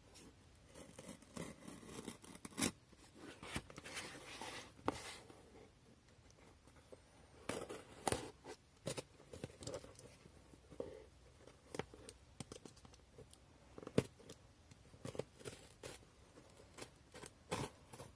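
A mailed package being cut and torn open by hand: irregular sharp snips, scratches and tearing of packaging.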